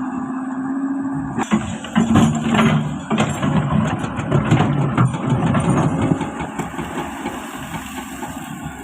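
Excavator engine running. About a second and a half in, irregular knocking and clatter begin and come in louder surges, then ease toward the end.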